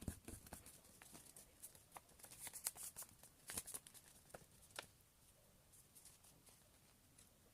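A sheet of paper being folded and creased by hand: faint rustles and crisp crackling creases, scattered through the first five seconds, then almost nothing.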